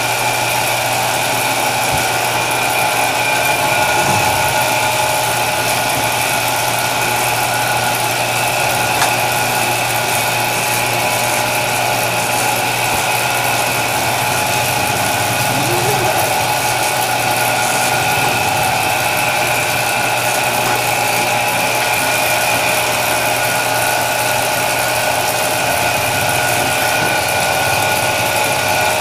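Belt-driven electric dough roller (dough sheeter) running steadily, a constant mechanical hum and whine from its motor, belt and rollers as dough is passed through.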